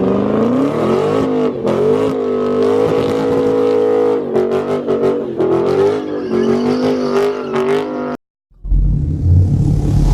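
Car engine held at high revs, its pitch wavering up and down, cutting off suddenly about eight seconds in. After a brief gap a deep, low engine rumble starts.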